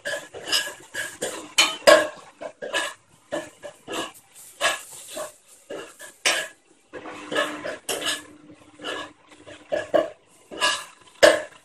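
A spoon stirring in a cooking pot, scraping and knocking against it in quick, irregular strokes as frying onions and ginger-garlic-chilli paste are mixed.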